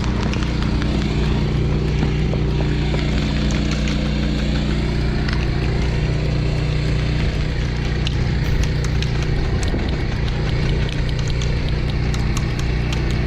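A steady low engine-like drone with scattered light clicks and ticks over it.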